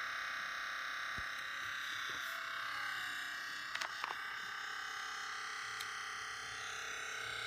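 2015 MacBook Pro making a steady, high-pitched buzzing whine made of several tones at once, with a couple of sharp ticks about four seconds in: an abnormal noise from the two-week-old laptop that followed a crunching sound.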